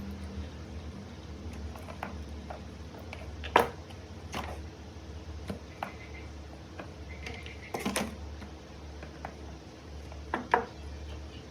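Scattered sharp clicks and light metallic clinks from hand work on an 18650 battery pack, the loudest about three and a half, eight and ten and a half seconds in, over a steady low hum.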